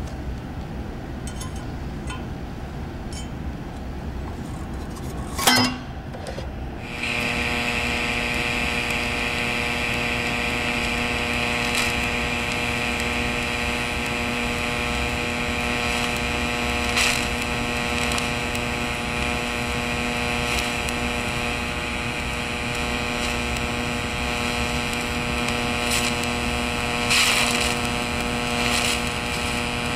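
TIG (GTAW) welding arc on steel: a sharp crack about five seconds in, then from about seven seconds a steady buzzing tone over a hiss, broken by a few brief crackles.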